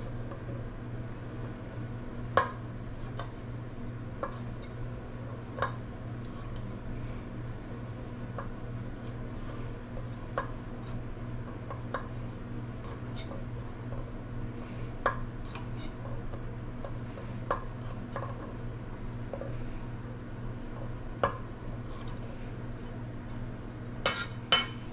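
Kitchen knife tapping and cutting on a wooden cutting board as garlic cloves are trimmed and sliced: scattered single knocks a second or two apart, with a quick run of taps near the end. A steady low hum runs underneath.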